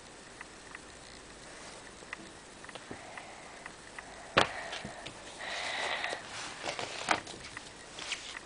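Faint handling noise as glossy magazines and the camera are moved about, with scattered light clicks and taps, a sharper click about four seconds in, and a breathy rush lasting about a second just after it.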